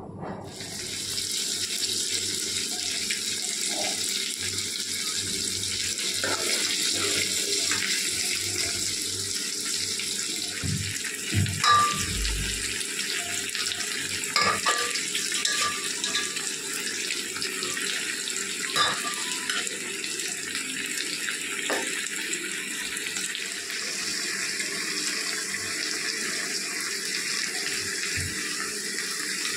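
Marinated chicken and sliced onions sizzling in hot oil in an iron kadai: a steady hiss that starts abruptly, with a few clinks of a steel spoon against the pan.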